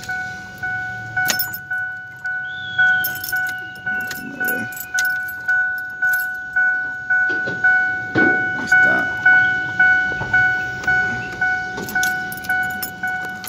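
Ford Windstar's dashboard warning chime dinging over and over, about one and a half times a second, with the key left in the ignition. Keys jangle and metal parts click as the ignition lock cylinder is worked loose.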